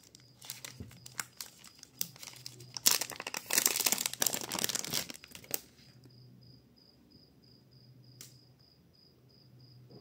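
A small plastic packaging bag being torn open and crinkled by hand to get out a USB-C adapter. It crackles for about six seconds, most densely from about three to five and a half seconds in, then stops. A faint, fast, high-pitched chirping remains afterwards.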